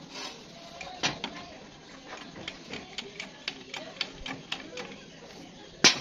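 Irregular light clicks and taps from handling a steel flat bar and a resting angle grinder, with one sharp, loud knock near the end.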